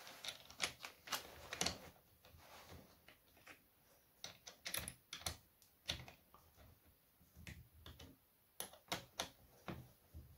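Irregular light clicks and taps of the chainsaw conversion kit's metal housing and small parts being handled and turned over in the hands, coming in small clusters with short pauses.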